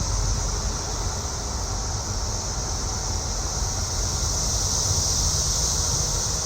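Steady high-pitched chorus of periodical cicadas from the emerging 13- and 17-year broods, swelling a little past the middle, over the low rumble of a car.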